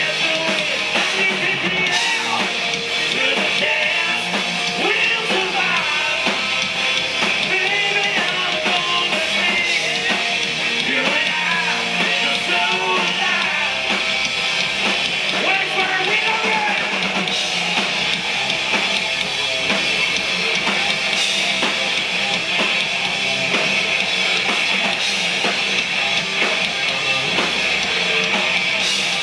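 Live hard rock band playing loudly through a PA: electric guitars over a drum kit, heard from within the crowd.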